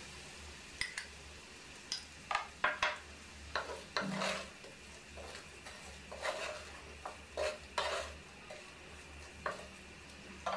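A spoon clinking and scraping as spiced besan is added to a kadhai of fried potatoes, then a wooden spatula stirring and scraping the potatoes around the pan, in irregular knocks and scrapes over faint sizzling.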